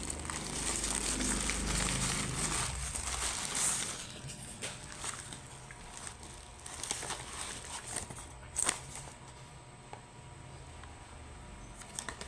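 Packaging crinkling and rustling for the first few seconds as it is handled, then quieter handling with scattered clicks and taps, the sharpest about two-thirds of the way through.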